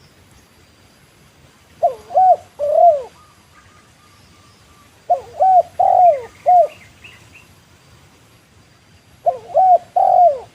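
Spotted dove (tekukur) cooing: three phrases a few seconds apart, each of three or four low, arched coo notes.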